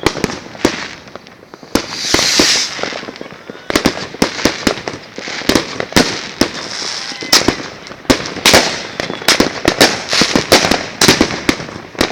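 Fireworks and firecrackers banging: a fast, irregular run of loud sharp bangs, several a second, with a hissing, crackling burst about two seconds in.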